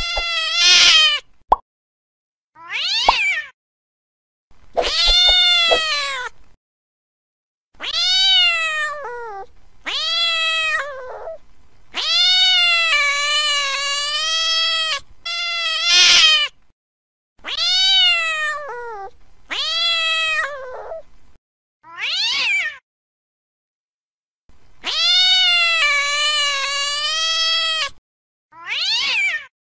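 Domestic cats yowling and caterwauling in a fight: a string of drawn-out, wavering yowls, each one to three seconds long, with a few shorter, sharper screeches, separated by short silences.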